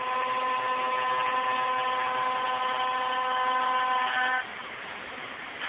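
CNC router spindle running with a steady high whine over a rushing noise while cutting plywood. About four seconds in the whine cuts off, leaving a quieter rushing noise.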